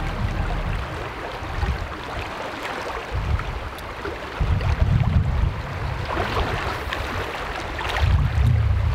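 River current flowing and lapping, with uneven gusts of wind rumbling on the microphone that swell about three, five and eight seconds in.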